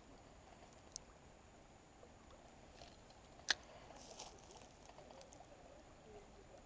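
Quiet outdoor background with a faint steady hiss, broken by a small click about a second in and a louder sharp click about three and a half seconds in, followed by a few faint scratchy ticks.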